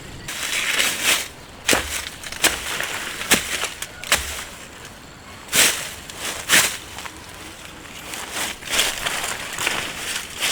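Irregular crunching and rustling, broken by about a dozen sharp snaps and cracks, the loudest about five and a half and six and a half seconds in.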